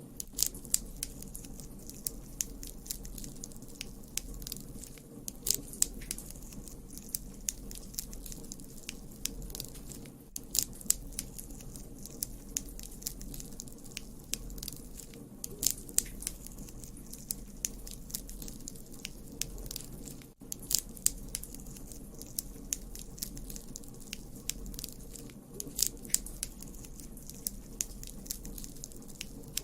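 Wood campfire crackling: irregular sharp pops and snaps, often in quick clusters, over a steady low rumble of the burning fire.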